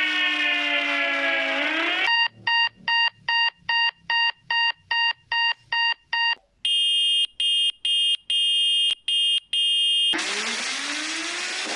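Emergency alarm sounds in sequence. A siren winds down, then an electronic beep repeats about three times a second for roughly four seconds. Next comes a higher alarm tone broken by short gaps about twice a second, and near the end a siren starts winding up again.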